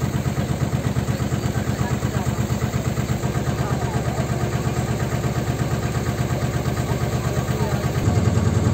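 A tour boat's engine running steadily, a fast, even pulsing hum, which gets a little louder about eight seconds in.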